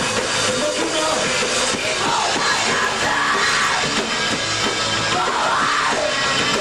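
Rock band playing live with distorted electric guitars and a drum kit, loud and dense. Two long rising-and-falling wails rise above the band, about two and five seconds in.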